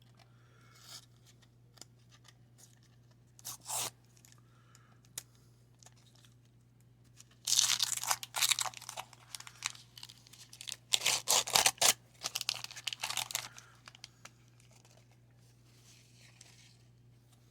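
A baseball card wax pack's waxed-paper wrapper being torn open and crinkled: a brief crackle, then two spells of rustling and tearing, each lasting a second or two. A faint steady low hum runs underneath.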